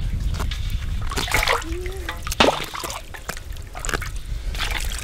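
Hot scalding water splashing and sloshing in a metal pot as wet feathers are pulled by hand from a scalded chicken, in irregular short splashes over a steady low rumble.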